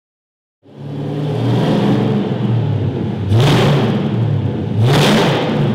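A car engine starts being heard suddenly about half a second in, running and revving, with two louder surges about a second and a half apart.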